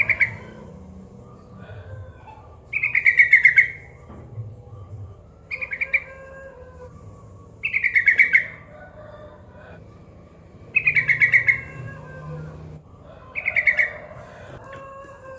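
Yellow-vented bulbul (trucukan) calling in repeated bursts of rapid chattering notes. Each burst lasts under a second and they come about every two to three seconds, with a few shorter, softer bursts in between.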